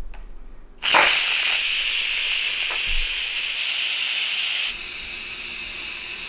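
Instant Pot electric pressure cooker venting steam through its pressure release valve. A loud, steady hiss starts suddenly about a second in, drops a little in level near the end, and keeps going. This is the quick release that lets the pressure out at the end of cooking.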